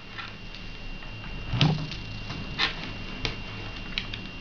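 Small handling sounds of a trigger cable being plugged into a DSLR: a few light clicks and knocks, the strongest about a second and a half in.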